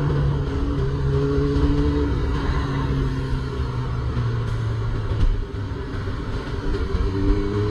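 Honda CB400 Super Four's inline-four engine running while ridden, with road and wind noise. Its pitch eases down from about two seconds in, then rises again near the end as the bike speeds up.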